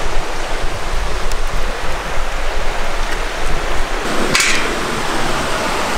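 Steady rushing of a stream nearby, with a brief sharp clatter about four seconds in.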